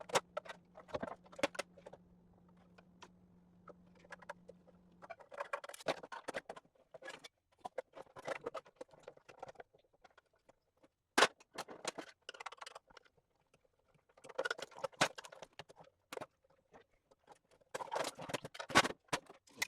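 Scrap electrical parts being handled and pried apart, with irregular clattering, clinking and scraping of metal and plastic pieces. A low steady hum runs for the first five seconds and then stops. One sharp snap about eleven seconds in is the loudest sound.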